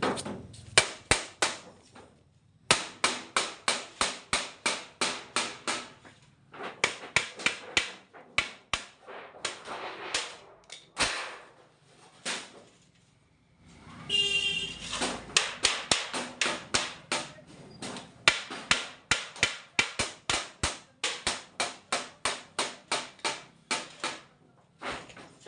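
Runs of sharp knocks or strikes, about three to four a second, broken by short pauses, with a brief pitched squeal or tone about fourteen seconds in.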